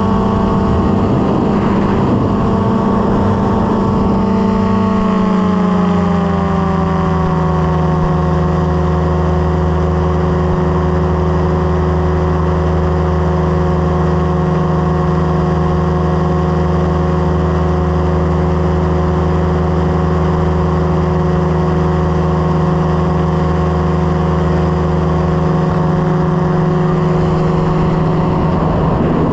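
Light aircraft engine and propeller running steadily in flight. Its pitch drops smoothly a few seconds in as the engine slows, then holds even.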